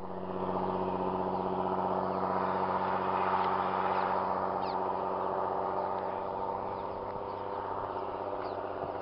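A steady, unchanging engine drone holding one pitch with its overtones, like a motor running at constant speed, with a few faint bird chirps above it.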